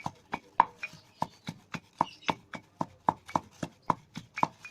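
Saga leaves being pounded with a pestle in a mortar: a steady run of sharp knocks, about three or four a second, as the leaves are crushed.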